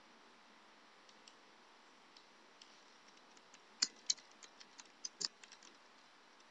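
Computer keyboard keys clicking as a file name is typed. A few faint taps come first, then a quicker run of sharper key clicks about four seconds in.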